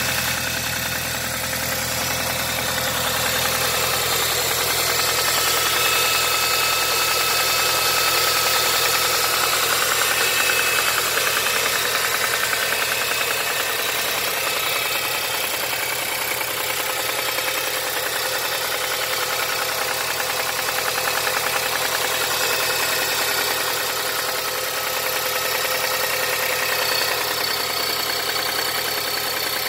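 Mazda 6 2.3-litre four-cylinder petrol engine running steadily at idle with a knock in it.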